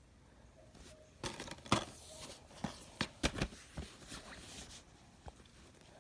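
Handling noise: a quick run of sharp clicks, knocks and rustles starting about a second in and lasting some three seconds, with one more faint click near the end.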